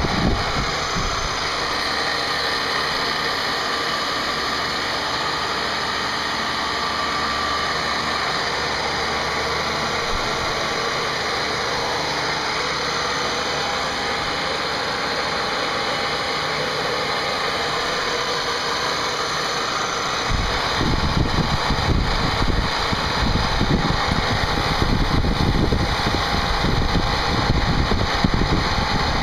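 CNC machine running steadily while machining a part, a continuous whirring machine noise with a faint steady whine. About two-thirds of the way through, a rougher, louder low rumble sets in and continues.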